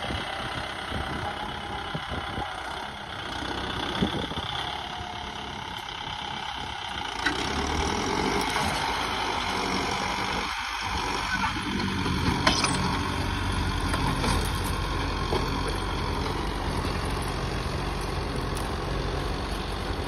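Kubota MU5502 tractor's four-cylinder diesel engine running under load as it pulls a two-bottom plough through hard, dry soil. It grows louder about a third of the way in as the tractor comes closer.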